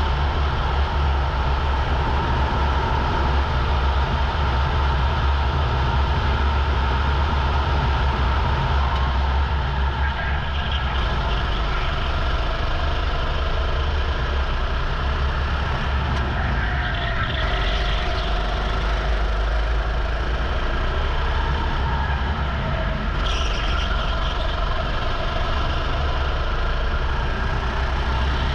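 Rental kart engine running hard on a flying lap, heard onboard with wind noise; the engine note rises and falls through the corners.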